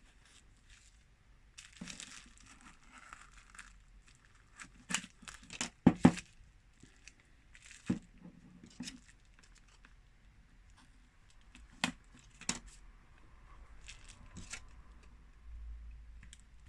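Small clicks, taps and scratchy scraping of a thin metal tool prying at a smartphone's heated back cover, with a pair of sharper knocks about six seconds in.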